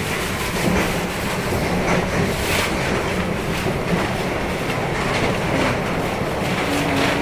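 Running noise of a CNR-built electric commuter train: a steady rumble of wheels on track with irregular clacks over rail joints, and no traction-motor sound. A short steady low hum comes in near the end.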